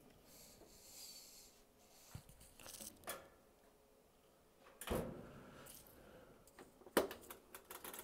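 Scattered handling knocks and a dull thump, then near the end a sharp click followed by a fast run of small ratcheting clicks as a top-loading washing machine's mechanical cycle-selector dial is turned.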